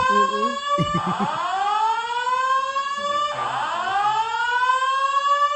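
Building evacuation alarm sounding a slow rising whoop that climbs for about two seconds, drops back and starts again, about every two and a half seconds. Going off because someone went through an emergency exit door.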